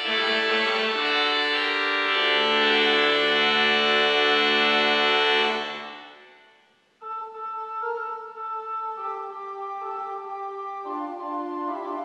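Church pipe organ playing. A full chord over a deep pedal note is held, then released about six seconds in and dies away over about a second. A new, quieter passage on a thinner, lighter registration then begins.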